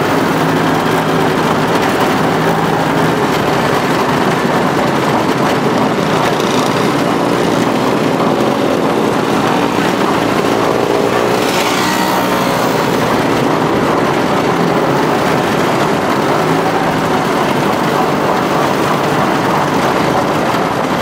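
Vintage snowmobile engine running steadily at low speed, heard from on board the moving sled, its pitch wavering a little as the throttle changes.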